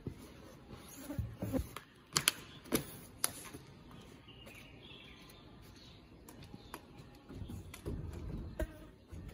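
A large, thin rockface wall panel being handled: a few sharp knocks and clatters as it is lifted and carried, then low rubbing and thudding as it is pressed flat onto the wall near the end.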